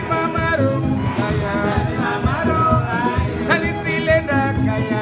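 Background music with a steady, high, shaker-like beat under a melody.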